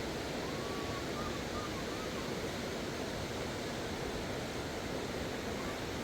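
Steady rushing of a river swollen with floodwater, an even, unbroken roar of water.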